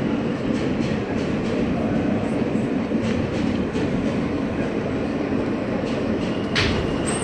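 Inside an R160A subway car running on the rails: a steady rumble of wheels on track with light clicks from rail joints. A thin, high wheel squeal starts near the end.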